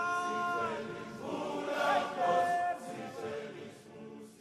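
Background music of choral singing: a few long held notes, changing pitch, that fade away near the end.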